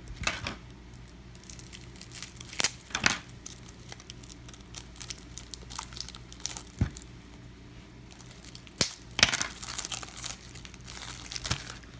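Trading card packaging crinkling and cards being handled: scattered crackles and rustles, the loudest bunched about three seconds in and again around nine to ten seconds.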